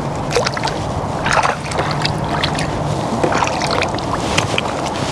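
Water lapping and splashing around a small fishing boat over a steady rushing background, with about five short, sharp splashes or knocks.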